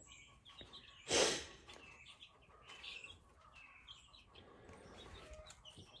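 Brooder chicks peeping faintly, scattered short high chirps. A brief burst of noise about a second in stands out above them.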